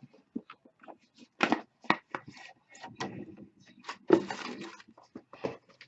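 A package being opened by hand: a string of irregular knocks, cracks and short scrapes, the loudest about four seconds in.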